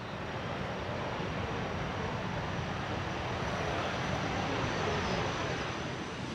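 MiG-15 jet fighter's turbojet engine, a licence-built copy of the Rolls-Royce Nene, at takeoff power during the takeoff roll. A steady roar with a faint high whine above it, slowly growing louder.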